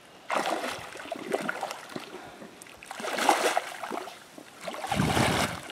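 Hooked blue catfish thrashing and splashing at the water's surface as it is reeled toward the net, in three bursts of splashing.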